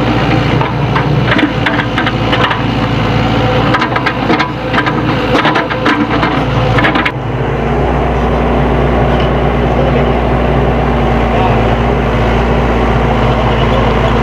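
SANY SY75C mini excavator's diesel engine running, with irregular clattering and scraping over the first half as it works gravel. About seven seconds in the clatter stops abruptly and the engine goes on as a steady drone.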